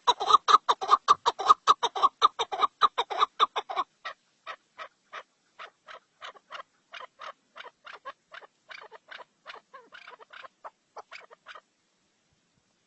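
A fowl-like bird calling in a fast, even series of short clucks, about five a second. After about four seconds the clucks turn softer and slightly slower, and they stop about a second before the end.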